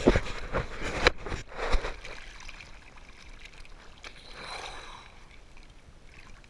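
Sea water splashing and sloshing around a camera held at the surface of choppy open sea, with loud splashes in the first two seconds, then quieter lapping.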